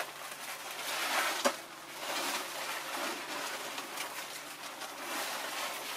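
Rustling and crackling of a cut cucumber vine's leaves and stems being handled, with a sharp click about a second and a half in.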